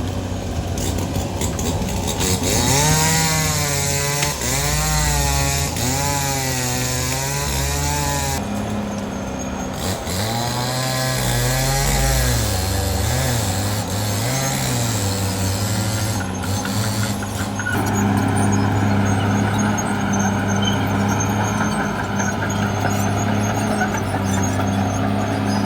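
Caterpillar D6R XL bulldozer's diesel engine working, its pitch repeatedly rising and falling as it takes and sheds load, then running steadily for the last several seconds.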